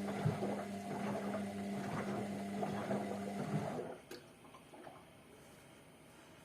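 Hotpoint Ariston washing machine in its wash phase: the drum motor hums steadily while the laundry tumbles and water sloshes, then the drum stops abruptly about four seconds in, leaving only a few faint clicks.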